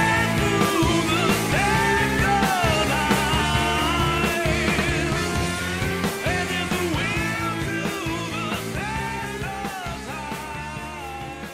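Background song with a singing voice over instruments, fading out gradually over the last few seconds.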